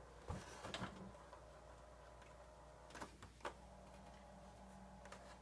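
Faint clicks of the piano-key transport buttons on a vintage Concord F-105 cassette recorder being pressed, about half a dozen times, with a faint low hum coming in about halfway through. The fast forward and rewind don't run, which the owner puts down to worn-out belts.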